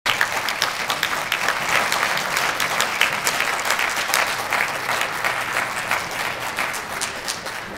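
Audience applauding, many hands clapping, the applause easing off slightly near the end.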